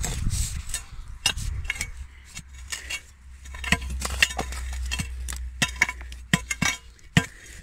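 A long metal digging bar jabbing and prying in stony soil to loosen a large black bryony root, giving about a dozen irregular sharp clinks and knocks.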